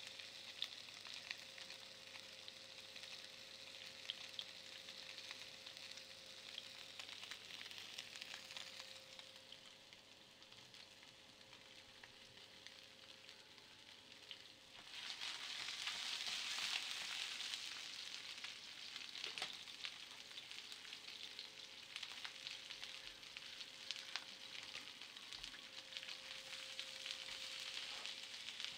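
Faint steady hiss with scattered light ticks and a low hum; the hiss gets quieter for a few seconds, then louder again about halfway through.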